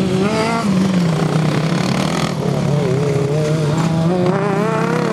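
Racing ride-on lawn mower engines running hard as the mowers lap a dirt track, their pitch rising and falling with the throttle.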